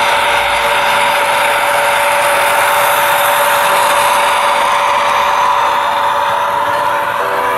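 Large-scale garden railway locomotive running past close by: a steady motor whine over the rolling rumble of its wheels and wagons on the track, swelling slightly as the train is nearest.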